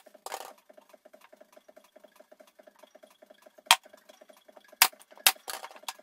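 Wooden blocks and a painted wooden box set down and shifted on a plywood base: a few sharp knocks with short scraping after the first and the last, over a faint, fast, even ticking.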